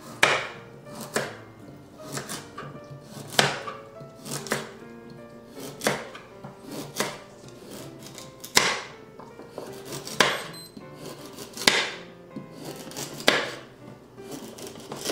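Chef's knife chopping carrots on a wooden cutting board: sharp single strikes at an uneven pace of about one a second, over background music.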